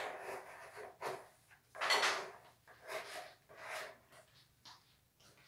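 A hand scraper dragging wet white porcelain clay along the inside of a plastic basin: about five rough scraping strokes roughly a second apart, the loudest about two seconds in, growing fainter near the end. The clay is being gathered out of the basin after levigation.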